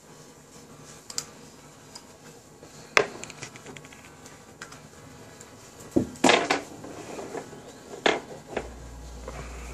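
Small metal parts of a Protank e-cigarette tank clicking and clinking as they are handled and fitted together: a few sharp knocks, the loudest about three seconds in and a cluster about six seconds in. A low steady hum comes in near the end.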